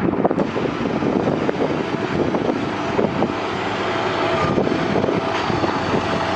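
An engine running steadily under a dense rumbling noise, with a thin steady whine coming in about halfway through.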